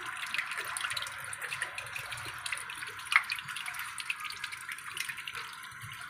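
Sanyo AQUA top-load washing machine draining its tub: water trickling and dripping away through the drain, with many small drips over a steady hiss.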